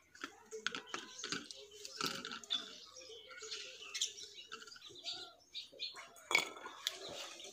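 Small birds chirping in short, scattered calls, mixed with light clicks and clinks of stainless steel bowls being handled, and one sharper knock about six seconds in.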